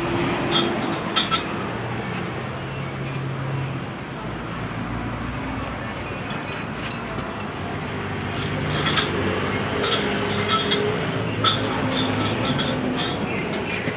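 Scattered metallic clinks and taps of the rear brake backplate assembly and hand tools being handled at the axle housing, over a steady rumbling background with a low hum that drifts in pitch.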